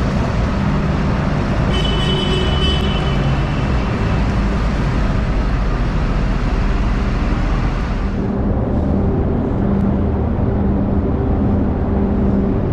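Diesel terminal tractor running as it tows a loaded container trailer across a ship's vehicle deck: a steady engine rumble and hum, with a brief high squeal about two seconds in. The high hiss drops away about eight seconds in while the low hum carries on.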